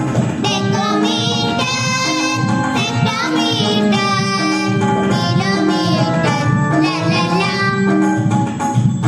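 Children's song: a young voice singing the metric length units, millimetre to kilometre, ending in 'la la laa', over instrumental accompaniment with held notes.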